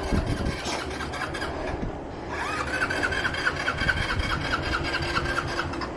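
Wind rushing over the camera microphone with tyre and road noise as a road bike climbs a steep grade. From about halfway, a quick run of short high chirps repeats several times a second.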